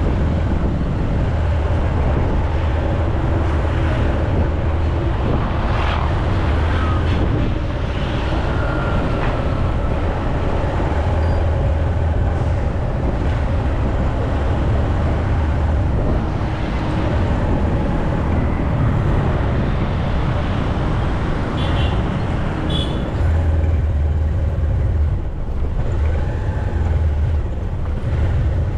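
Steady vehicle and road noise from a ride through town streets, recorded on an action camera, with a heavy low rumble throughout.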